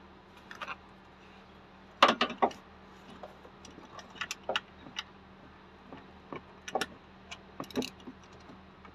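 Scattered metallic clinks and taps of tools and parts against the engine's pulleys, tensioner and brackets during alternator replacement work, with a quick cluster of louder clinks about two seconds in.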